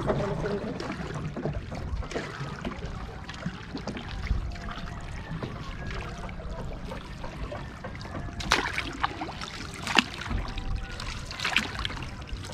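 Water washing and lapping around a small boat on the sea: a steady low wash with a few short, sharper sounds in the last few seconds.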